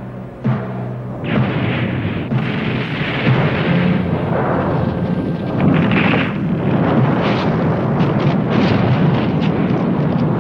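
Film sound effects of a series of explosions over a continuous heavy rumble, with louder blasts rising out of it every couple of seconds, as dust and debris erupt across the landscape.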